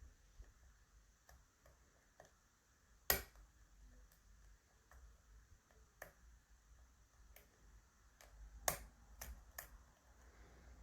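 Faint, irregular clicks of a lock pick and pins inside an ASSA 600 pin-tumbler lock, as barrel pins are lifted out of the countermilling one by one under tension. One sharper click comes about three seconds in, and a quick run of three near the end.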